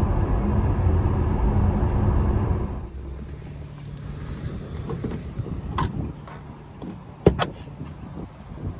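Steady road and tyre rumble inside the cabin of an electric Tesla Model X at highway speed, cutting off suddenly about three seconds in. Then a quieter outdoor scene with a few sharp clicks and knocks, the loudest about seven seconds in, as a Tesla Supercharger connector is handled and plugged into the car's charge port.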